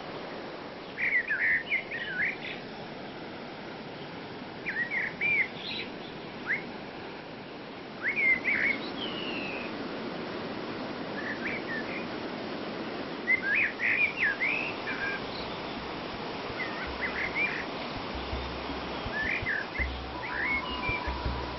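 A songbird singing short, quick phrases of chirps every couple of seconds over the steady rush of falling water. A deeper rumble joins near the end.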